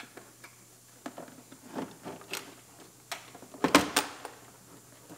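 A pry bar working a wedged engine air box loose: scattered clicks and knocks, with the loudest clatter of knocks about two-thirds of the way in.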